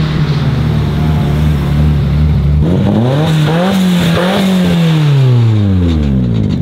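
Nissan 200SX S13 drift car's engine as the car drives close past: a steady note, then a rise under throttle about three seconds in, then a long falling glide as it goes by.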